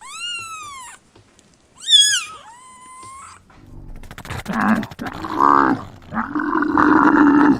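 Animal calls: two short high-pitched calls, the first rising then falling, followed by a longer, loud, rough growling call.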